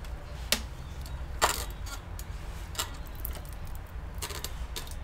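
A few sharp, light clicks and clinks of small tools being handled on a workbench, the loudest about a second and a half in, over a steady low hum.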